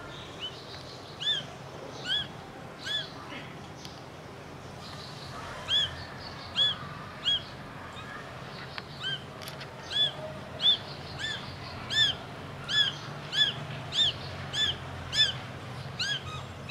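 Very young Persian kitten, two to three weeks old, mewing over and over in short, thin, high-pitched mews, each rising then falling. After a pause about four seconds in, the mews come faster and louder, about one every half second to second.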